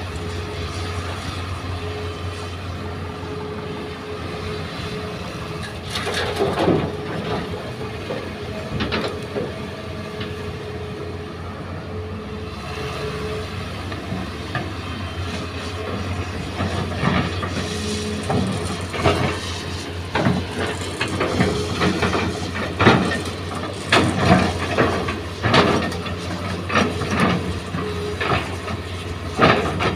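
Hitachi hydraulic excavator's diesel engine running steadily under load while it digs and swings, with a steady whine that fades out about halfway through. In the second half, frequent knocks and thuds of the steel bucket working soil and rock.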